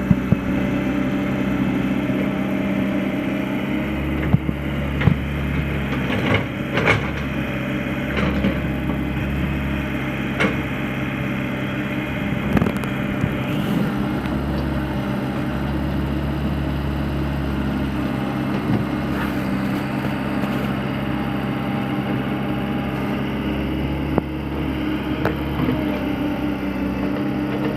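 A small motor humming steadily, with scattered sharp clicks and knocks.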